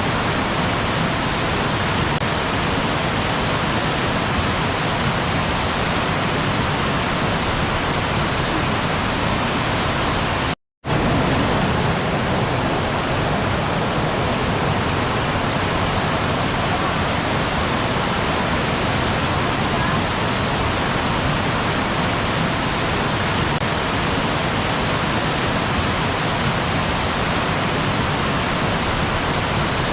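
Steady rushing of a waterfall, cut briefly to silence once about ten seconds in.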